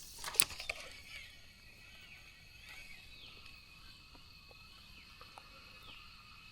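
Quiet outdoor lakeside ambience: a steady faint high hum with a few short bird chirps. One sharp knock or click comes about half a second in.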